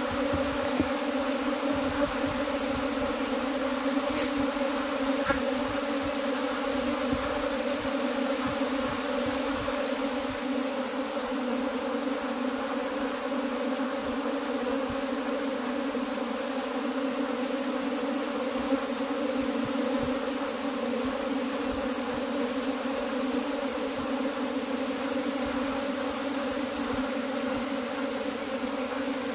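Thousands of honey bees in a dense cluster buzzing together in a steady, unbroken low hum that holds one pitch throughout.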